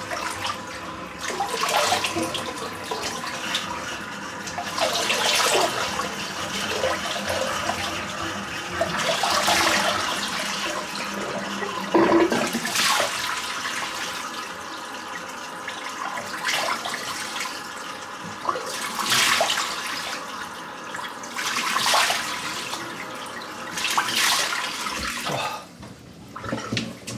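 Tap running into a sink while cold water is splashed onto the face to rinse off after a shave, with a splash every few seconds. The water stops near the end.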